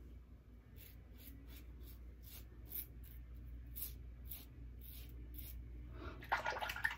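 Double-edge safety razor scraping lathered stubble on the neck in short, faint strokes, about two or three a second. Near the end comes a louder rush of noise, tap water as the razor is rinsed at the sink.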